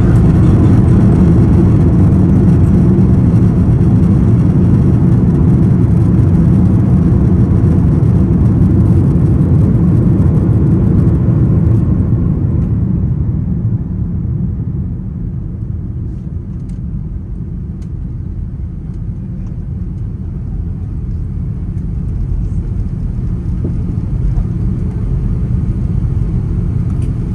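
Cabin noise of an Airbus A330 rolling on the runway just after landing: a loud, steady low rumble of engines and wheels. It dies away between about twelve and sixteen seconds in as the jet slows, then rises a little near the end.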